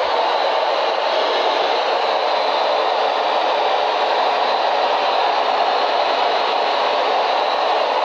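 Radio static: a loud, steady hiss from a receiver's speaker, with no tone or voice in it.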